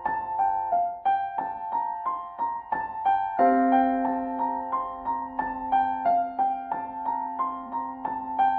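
Background piano music: notes struck at an even pace, about three a second, with a low note held from about three and a half seconds in.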